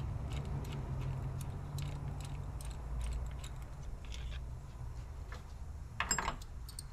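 Light irregular clicks and ticks of a ratchet and socket as already-loosened 10 mm bolts are backed out of an LT1 Optispark distributor, over a steady low hum. About six seconds in comes one sharper, louder metallic clink.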